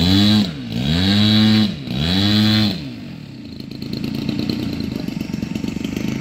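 Engine of a large radio-controlled Extreme Flight Laser aerobatic plane, revved up and down three times in quick blips, then dropping to a steady idle about three seconds in.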